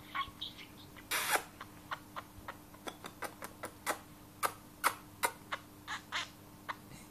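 Budgerigar pecking and nibbling at the metal tip of a black tube: irregular sharp beak clicks and taps, a couple a second, with a short scratchy rasp about a second in.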